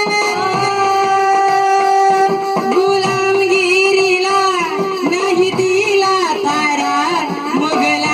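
Live folk-song music: a melody line that slides and wavers in pitch, with quick ornaments, over steady held accompanying notes.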